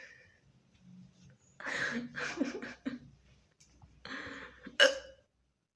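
A woman's hiccups with breathy intakes of breath: a cluster of throaty gasps a couple of seconds in, then a short, sharp hic near the end that is the loudest sound.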